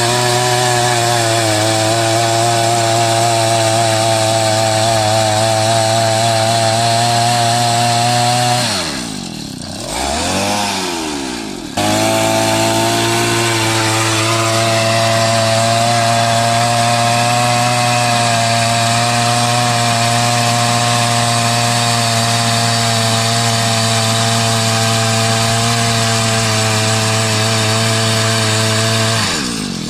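Engine of a petrol earth auger running at high, steady revs. It drops off about nine seconds in, sweeps back up around twelve seconds, and eases off again at the very end.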